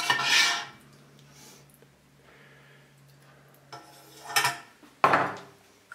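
Metal ladle scraping and clinking against a stainless steel stockpot while braised meat and sauce are served out. There is a loud clatter at the start and a few sharper knocks near the end.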